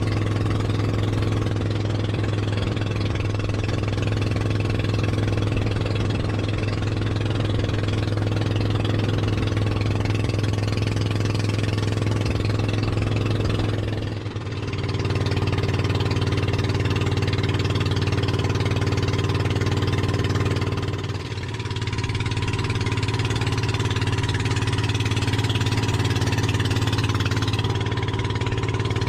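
Engine of a motorized outrigger boat (bangka) running steadily, with two brief dips in loudness about 14 and 21 seconds in.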